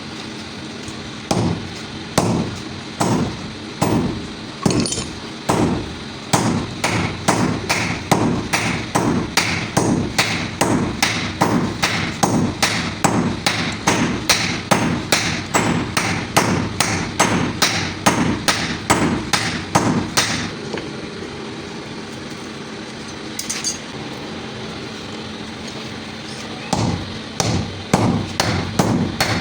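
Hand hammer striking steel in a quick, steady rhythm of ringing metallic blows, about two to three a second. The blows stop for several seconds about two-thirds of the way in, leaving a steady hum, then start again near the end.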